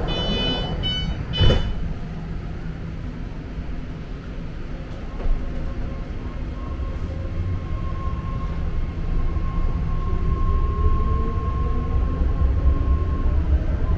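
BART train: short warning beeps stop just after the start, a sharp thud about a second and a half in, then a low rumble that builds steadily as the train gets moving, with a steady whine joining partway through.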